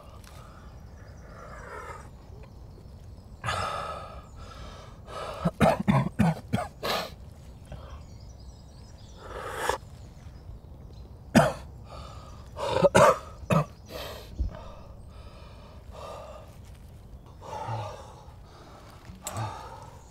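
A young man's heavy, ragged breathing with gasps and coughs, coming in uneven bursts with pauses between them, loudest about a third of the way in and again past the middle.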